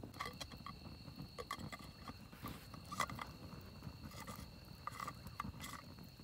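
Wood campfire crackling, with small irregular pops and snaps. Two faint steady high tones hang behind it.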